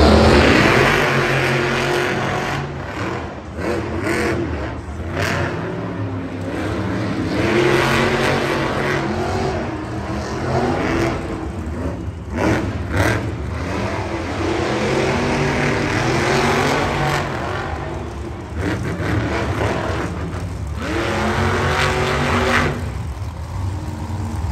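Monster truck engines revving and accelerating, the engine note rising and falling again and again, with one clear rise in pitch near the end.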